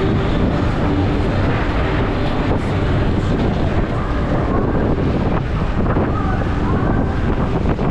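Steady wind buffeting on the microphone of a moving roller skater, over the rumble of skate wheels rolling on the road.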